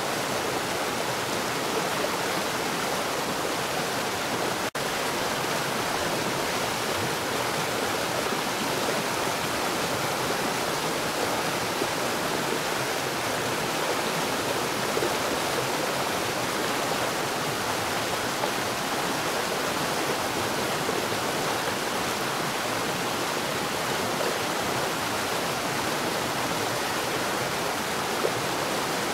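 Water falling at a rapid rate underground: a steady, dense rushing with no let-up. A split-second dip in level comes about five seconds in.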